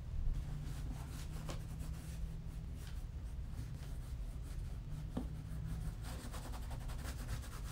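Cotton rag rubbing cream shoe polish into a black leather boot: soft, uneven scrubbing strokes that grow denser near the end, over a steady low hum. A light knock right at the start.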